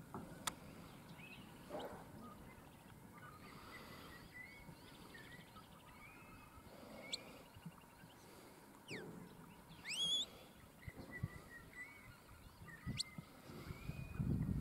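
Faint outdoor background with scattered bird chirps and short calls. A sharp, rising, warbling call about ten seconds in is the loudest.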